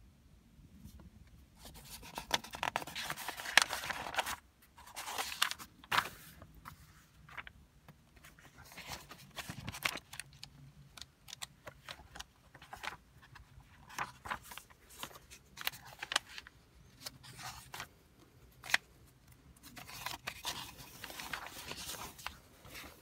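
Paper pages of an old desk diary being turned by hand, rustling in irregular bursts with sharp flicks and snaps between them. The longest rustle comes about two seconds in.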